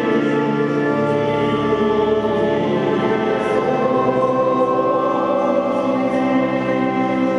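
A choir singing slow, sustained chords, the notes held long and changing only gradually.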